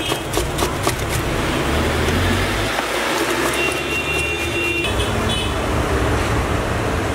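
Steady street traffic noise, with a quick run of sharp knife cuts through a head of cabbage in the first second or so.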